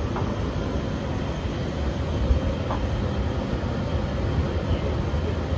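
Steady low rumbling noise with a faint steady hum over it.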